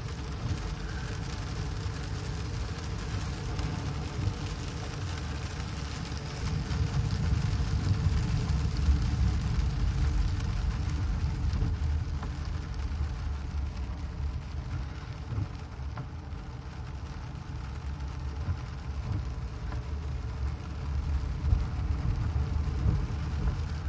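Inside a car driving through heavy rain: a steady low rumble of the engine and tyres on the wet, flooded road, with the hiss of rain hitting the windshield and body.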